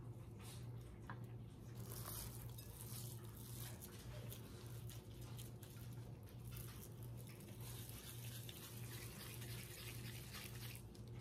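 Gloved hands shaping raw ground beef mixed with uncooked rice into meatballs: soft, irregular squishing and patting of the wet meat, over a steady low hum.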